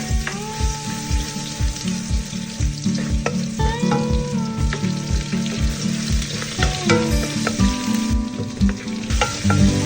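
Food sizzling as it fries in a pan, under background music with a steady beat and bass line.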